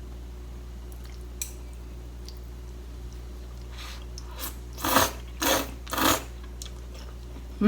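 Udon noodles being slurped: three short slurps in quick succession about two-thirds of the way in, after a faint click.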